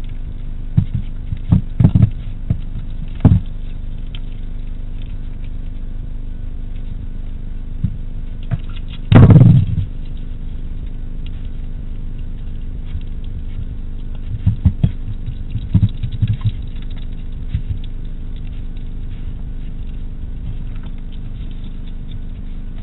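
Hedgehog eating from a dish close to the microphone: scattered small clicks and knocks, in clusters in the first few seconds and again around fifteen seconds in, with one louder thump about nine seconds in. A steady electrical hum runs underneath.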